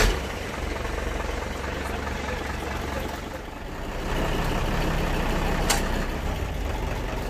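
Diesel truck engine idling steadily after starting, a steady low hum.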